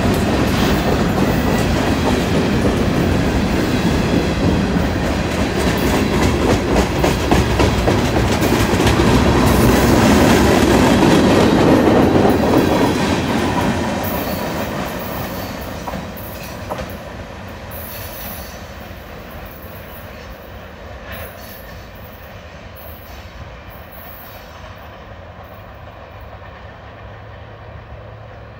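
Freight cars (covered hoppers and gondolas) rolling past at close range, the steel wheels clicking over the rail joints. The sound is loud for about the first thirteen seconds, then fades steadily as the last car moves away down the track.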